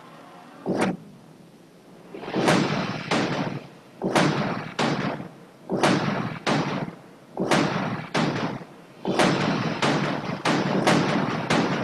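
Cinematic title-sequence impact hits: a run of sharp, heavy hits, each with a short fading tail, about one a second at first and coming quicker and closer together near the end.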